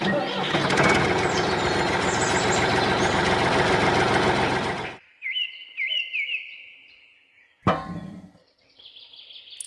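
A loud, steady, dense noise for about five seconds that cuts off suddenly, followed by three quick high chirps in a row and then a short burst of noise.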